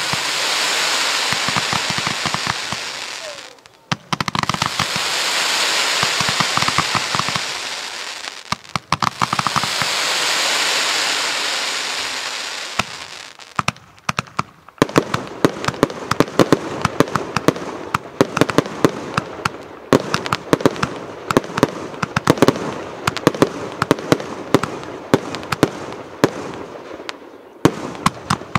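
A Rubro Event Box Zero Tolerance 152-shot firework box firing. It opens with three long rushing hisses, each about four seconds, as fans of crackling tails go up. About halfway through it turns into a rapid, dense run of sharp pops and crackles as the shots burst overhead.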